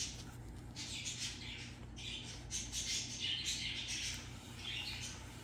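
Computer mouse sliding back and forth across a cloth mouse pad surface: a series of soft scratchy rubbing strokes.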